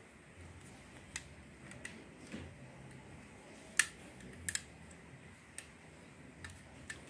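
Scattered sharp metal clicks and taps from a staple gun being handled and probed while its base is worked at to open it. The loudest click comes near the middle, followed shortly by a quick double click.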